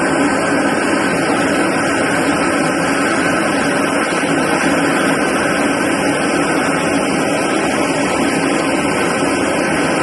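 Steady, loud aircraft engine noise, running without change.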